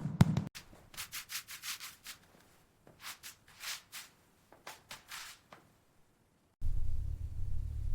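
Short scraping strokes, a few a second in uneven runs, like a rough tool rubbing or scraping a surface, then a pause. About a second and a half from the end, a steady low rumble starts suddenly.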